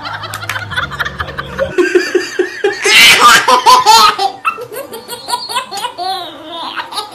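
A baby laughing in repeated bursts, loudest about three seconds in, then easing to softer giggles.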